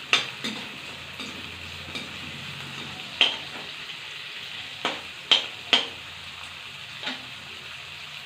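Chopped onions sizzling in hot oil in a kadai while being stirred, with a steady frying hiss and a few sharp clacks of the stirring utensil against the pan, several of them close together about five seconds in.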